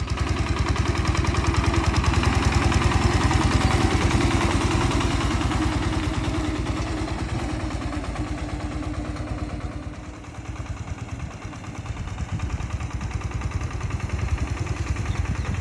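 Small homemade mini tractor's engine running with a rapid, even beat while pulling a trailer loaded with sacks. It dips in loudness about ten seconds in, then grows louder again as the tractor comes closer.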